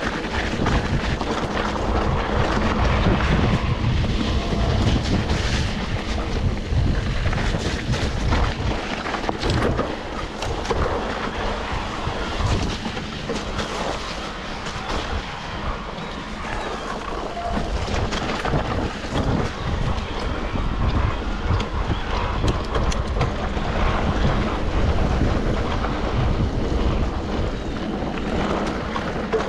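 Wind noise on the microphone over a steady low rumble, with many short knocks and rattles throughout.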